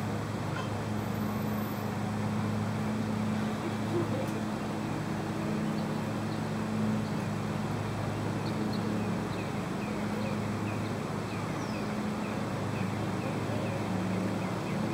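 Steady outdoor background noise with a low hum, and a faint run of short high chirps in the second half.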